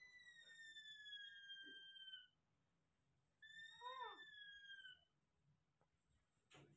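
Baby macaque giving two long, high-pitched whistle-like calls, each sliding slowly down in pitch, the second shorter and wavering at its lower end.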